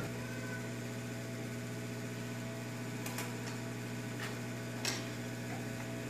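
Hot-air rework gun blowing steadily with a low, even hum, with a few light clicks of small tools being handled about three, four and five seconds in.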